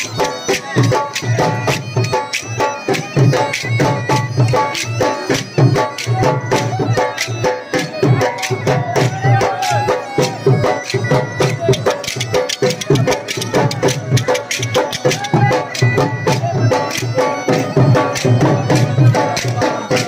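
Bagpipe and dhol band playing folk music: a steady bagpipe drone and wavering melody over a fast, loud drumbeat.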